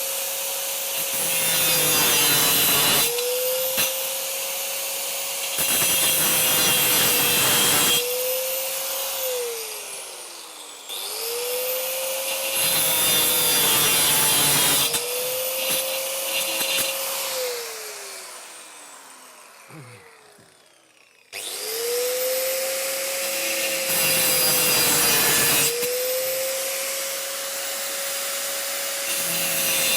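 Angle grinder with a stone-cutting disc cutting through the protruding ends of steel screws in several grinding passes of a few seconds each, its motor whine dipping under load. Twice the grinder is switched off and its whine falls away as the disc spins down, then it starts again with a rising whine.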